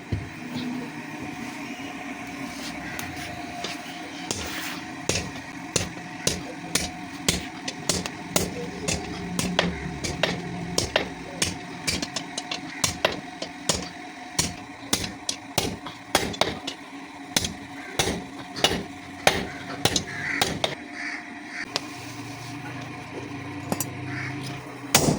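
Hammer blows on hot spring steel against an anvil, hand-forging a sickle blade, about one and a half strikes a second over a steady background hum.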